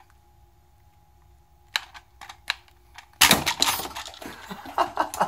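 A few light plastic clicks, then a spring-loaded gel-ball grenade pops open about three seconds in, throwing out foam Rival balls that clatter and bounce off hard surfaces in a quick run of clicks and knocks.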